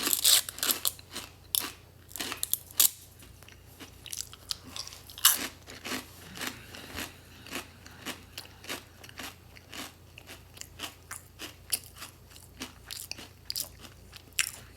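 A fortune cookie being crunched and chewed close to the microphone: sharp crackling bites, loudest in the first few seconds and once more about five seconds in, then a run of smaller, fairly regular chewing crunches.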